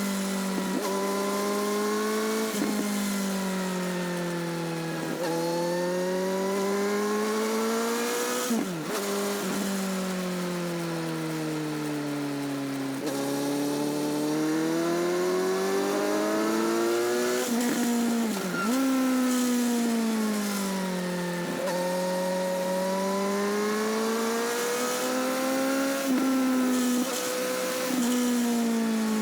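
Sport motorcycle engine and exhaust recorded close to the exhaust while riding. The pitch rises and falls repeatedly as the rider accelerates and eases off, with two sudden sharp breaks in pitch along the way.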